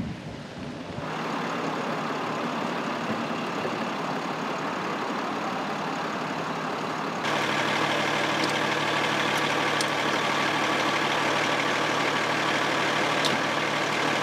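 A fire engine's diesel engine idling steadily. It gets louder about seven seconds in, with a few faint clicks near the end.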